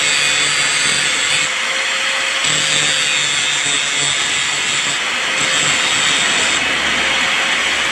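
Angle grinder cutting steel: a steady grinding hiss with the motor's whine held at one pitch throughout.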